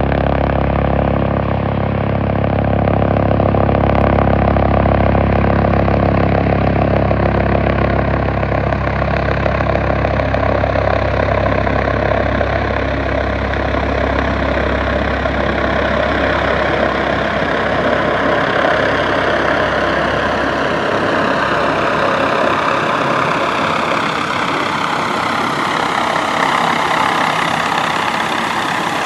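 Airbus H145 helicopter approaching to land and descending overhead: continuous rotor and turbine sound with a steady whine. The deep low rumble drops away about two-thirds of the way through, while the whine slowly rises in pitch toward the end.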